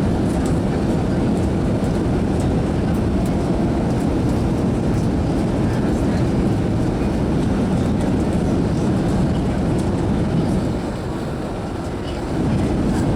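Steady low rumble inside an airliner cabin, its engine and cabin noise easing briefly near the end.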